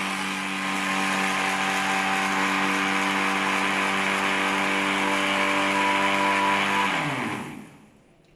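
Electric blender running at a steady high speed, its motor whining over the grainy rush of sugar being milled. About seven seconds in it is switched off and the motor winds down, the whine falling in pitch and fading away.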